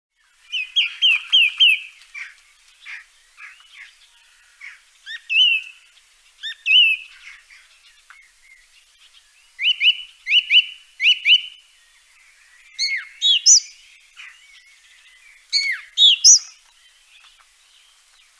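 Songbirds singing: repeated short phrases of quick chirps and whistled notes, with brief pauses between phrases.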